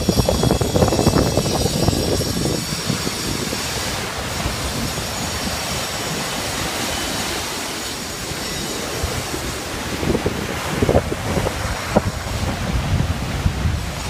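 Rough sea surf breaking and washing up the beach: a continuous rush and hiss of foaming water. Gusts of wind buffet the microphone with low rumbles near the start and again in the last few seconds.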